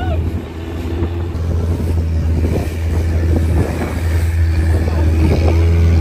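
Boat engine running at a steady speed, a low drone with an even hum under it.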